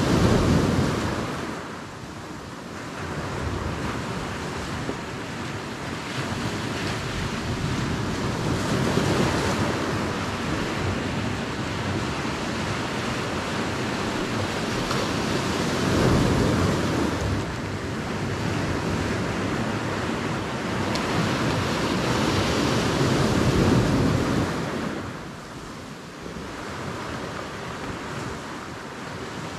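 Sea waves and wind on the microphone: a steady rushing noise that swells and eases every several seconds.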